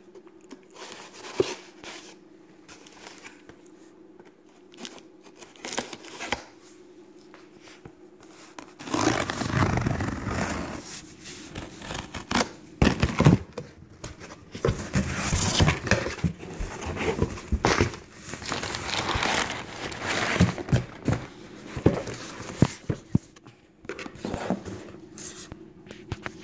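Cardboard shipping box being opened and unpacked by hand: crinkling, tearing and scraping of cardboard and packing material, with knocks as the boxed knife set is lifted out. Only a few light clicks at first; the rustling and handling start about nine seconds in and go on, over a faint steady hum.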